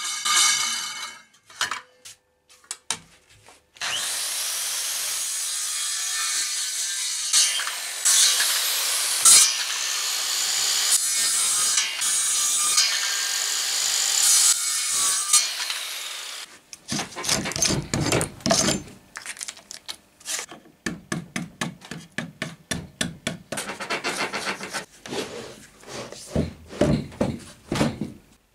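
Makita beam saw cutting into oak, a loud steady rasping run of about twelve seconds after the motor winds down and a few clicks. Then a long run of quick, uneven hand-tool strokes scraping the oak, two to four a second.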